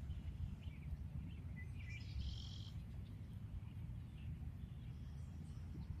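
Small birds chirping in short calls, with one brighter phrase about two seconds in, over a steady low rumble on the microphone.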